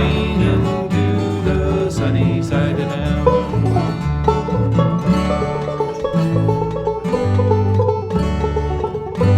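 Bluegrass string band playing an instrumental passage: plucked banjo and guitar over a stepping bass line.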